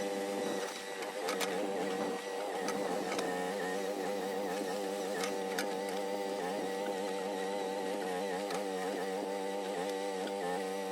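Groundhog mini excavator's engine running steadily, its pitch wavering slightly as the hydraulics take load, with a few sharp clanks scattered through.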